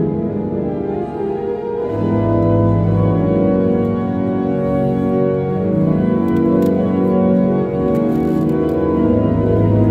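Church pipe organ playing a prelude: sustained chords that change slowly, with a deep bass note coming in about two seconds in.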